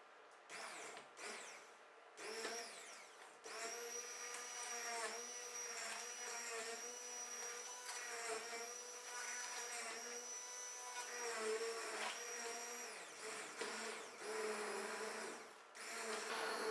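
Electric stick blender puréeing cooked carrots and potatoes in broth in a pot: a few short pulses about half a second in, then the motor runs steadily with a high whine. Its pitch sags now and then as the blade meets chunks, and it stops briefly twice near the end.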